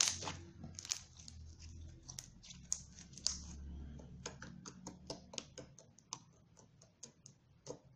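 A series of small, sharp, irregular clicks, several a second, thinning out toward the end.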